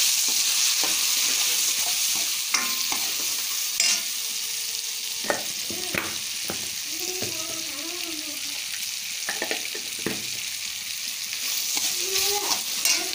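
Onion, tomato and freshly added chilli and coriander powder sizzling in hot oil in a steel pan as a steel spoon stirs them. The spoon clicks and scrapes against the pan every second or two.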